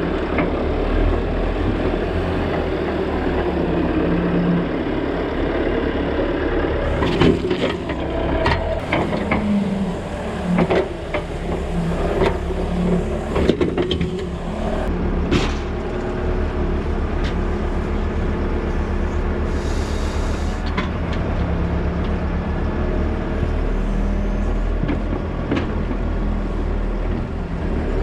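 Tractor engine running steadily, with a cluster of sharp clanks and knocks from about 7 to 16 seconds in and a brief hiss about 20 seconds in.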